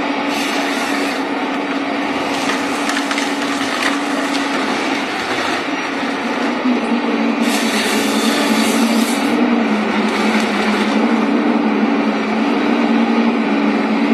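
Forestry harvester running steadily, its engine and hydraulics holding a constant drone, while the saw in its harvester head cuts through logs in several bursts, the longest about halfway in.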